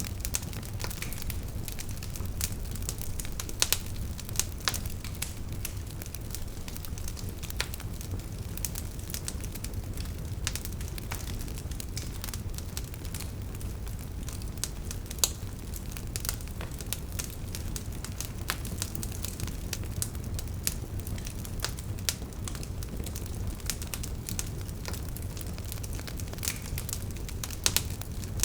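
Wood fire burning in a fireplace: a steady low rumble of flame with frequent sharp crackles and pops from the burning logs, a few louder pops standing out.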